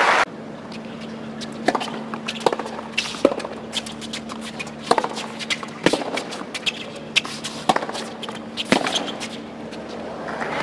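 Tennis rally: a ball struck back and forth by rackets, sharp pocks roughly once a second over a quiet crowd and a faint steady hum. Applause rises near the end as the point finishes.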